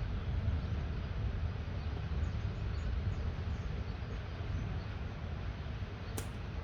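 Light rain falling steadily, an even hiss over a low rumble, with one sharp tap near the end.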